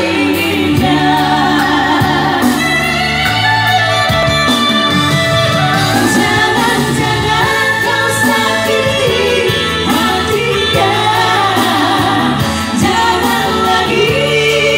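Two women singing a duet through handheld microphones over amplified backing music with a steady bass line.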